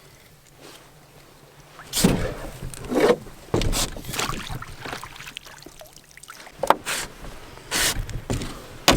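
Irregular splashes, bumps and rustles as a freshly caught perch is brought aboard a small fishing boat and handled. The noises come in short uneven bursts after a quiet first two seconds.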